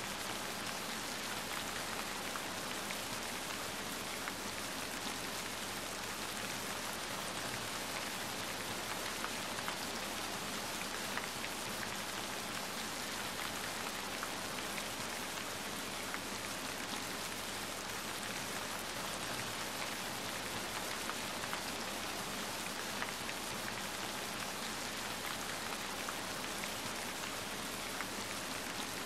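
Steady rain falling: an even hiss with scattered faint small ticks.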